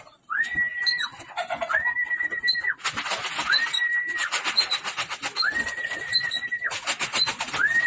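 A person whistling a steady held note about five times, each lasting about a second with a quick rise at the start and a drop at the end: the keeper's call to the young pigeons that feed is coming. In between, a rapid flutter of pigeon wings.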